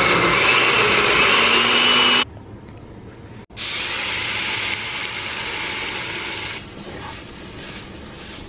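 Oster countertop blender running with a slightly rising whine, then switched off a little over two seconds in. About a second later, beaten egg mixture poured into a hot pan sizzles loudly, easing to a quieter sizzle about halfway through.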